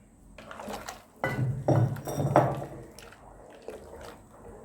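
Pomegranate juice thickened with flour being poured into a cooking pot and stirred in. The liquid sounds are loudest between about one and two and a half seconds in, then die down.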